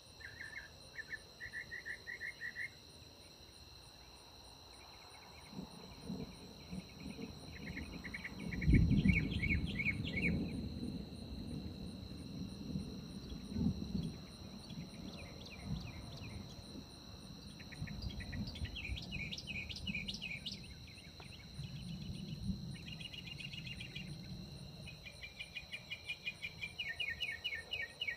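Rolling thunder rumbling low from about five seconds in, loudest around nine seconds and dying away after about twenty seconds. Underneath it, night insects keep up a steady high trilling with bouts of rapid rhythmic chirping.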